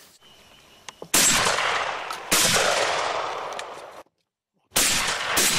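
Shotgun shots at incoming pigeons: two shots about a second apart, each trailing a long fading echo. The sound then drops out completely for under a second, and another shot follows near the end.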